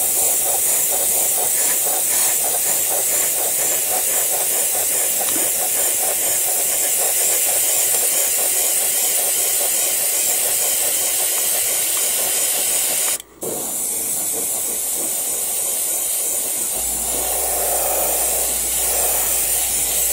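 Airbrush spraying gray paint, a steady hiss of compressed air and atomised paint. It cuts out for a moment about 13 seconds in as the trigger is released, then resumes a little quieter.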